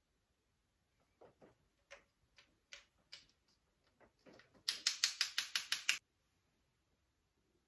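Scattered faint taps, then a run of sharp, loud clicks, about six a second, for about a second and a half.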